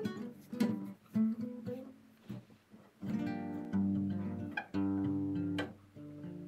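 Guitar being played: single notes picked in the first half, then full chords strummed from about three seconds in.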